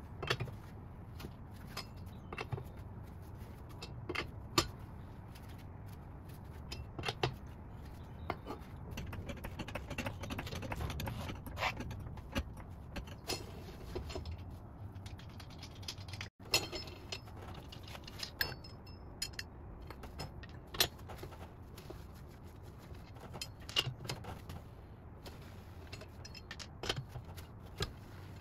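Metal clinks and rattles of a four-way cross lug wrench working the lug nuts on a minivan's steel front wheel, in many short sharp clicks spread irregularly through the stretch.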